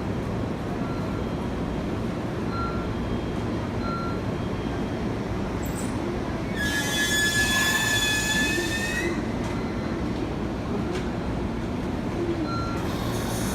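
Train rumbling steadily on the rails; about six and a half seconds in, a loud high-pitched wheel squeal rises slightly in pitch and lasts about two and a half seconds.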